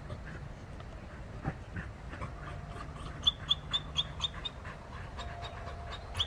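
American Pit Bull Terriers panting, with a quick run of about six short high squeaks a little past the middle.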